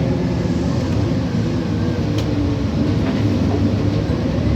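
City transit bus running, a steady low rumble of engine and drive noise, with two faint ticks about two and three seconds in.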